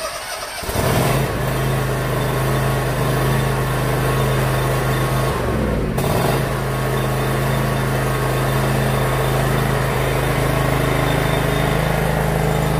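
John Deere zero-turn riding mower engine starting up and settling within the first second, then running steadily. Its note changes briefly about five to six seconds in.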